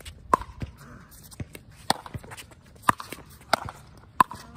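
Pickleball rally: paddles striking a hard plastic pickleball with sharp hollow pocks, about five loud hits roughly a second apart, with fainter taps of bounces and shoes on the hard court between them.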